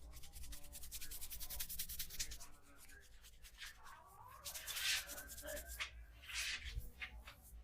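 Hands rubbing briskly over skin and hair during a head and neck massage: a fast run of short rubbing strokes, about ten a second, for the first three seconds, then a few slower, longer rubs.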